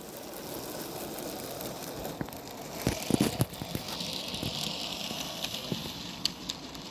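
Small OO9 narrow-gauge model train running on the layout: steady running noise with light clicks and rattles from the wheels on the track, and a few louder knocks about three seconds in.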